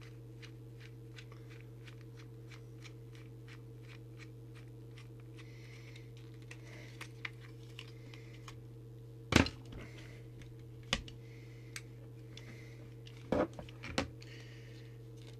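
Light, rapid ticking a few times a second as a screwdriver works a screw and the antenna loose from a small plastic walkie-talkie case. Then several louder knocks and clicks as the case and circuit board are handled, all over a steady low hum.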